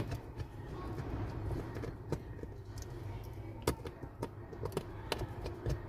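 Scattered small clicks of a screwdriver and tweezers working the screws out of a smartphone's frame, about six over a few seconds, over a steady low background rumble.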